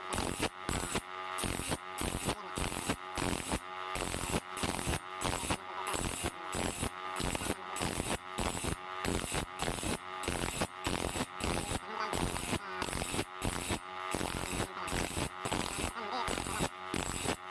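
Hand file rasping across the steel teeth of a saw blade in quick, even strokes, about two a second, each stroke with a slight metallic ring: sharpening the saw by hand.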